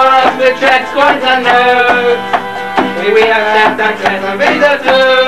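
Instrumental break of a song: a melody over a steady beat.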